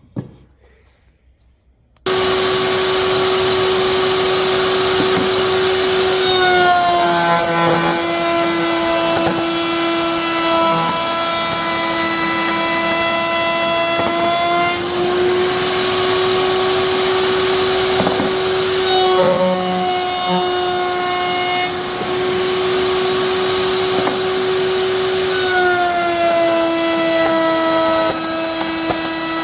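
An electric woodworking power tool is switched on about two seconds in and runs with a steady high whine. Its pitch dips and the sound grows rougher twice, for several seconds each time, as it cuts into wood.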